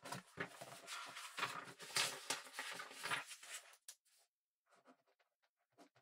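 Ballpoint pen writing on paper: a run of close, scratchy strokes for nearly four seconds, then a pause and a few short separate strokes near the end.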